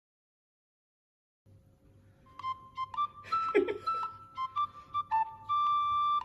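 After about a second and a half of silence, light background music with a flute-like melody comes in. About three and a half seconds in there is one short, loud sneeze from an Exotic Shorthair cat, a sign of its cat flu.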